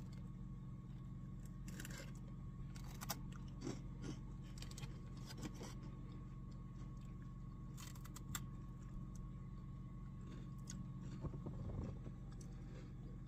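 Crisp rice crackers (senbei) being bitten and chewed: scattered short crunches over a steady low hum.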